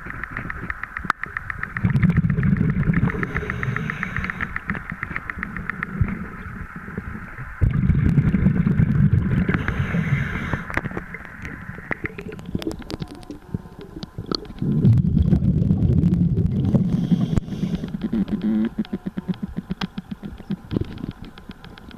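Underwater breathing of a diver: three long bursts of exhaled bubbles, about one every six seconds, heard from below the surface of an iced-over swimming pool.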